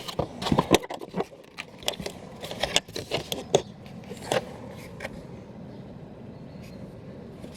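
A car's interior trim panel being worked loose by hand: a run of sharp clicks, knocks and scrapes as its retaining clips are released, dying away about four and a half seconds in.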